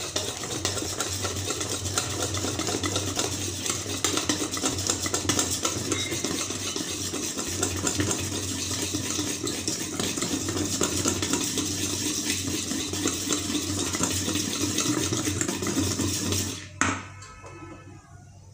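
Wire whisk rapidly beating thick besan (gram-flour) batter in a steel bowl, a steady scrape and clatter of wires against the metal, just after Eno fruit salt has been added so the batter froths and rises. The whisking stops abruptly near the end.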